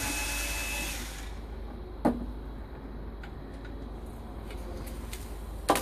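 A small cordless screwdriver whirs for about a second, undoing the screws of an inverter's plastic front cover. A sharp plastic click follows about two seconds in, and two louder knocks come near the end as the cover is handled.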